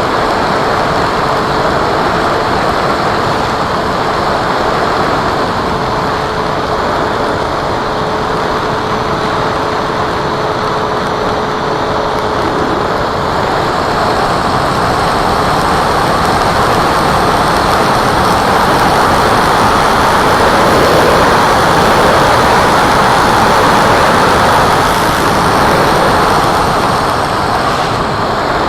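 Steady loud rush of air and propeller noise from a radio-controlled model Cessna in flight, with a faint steady whine that stops about halfway through.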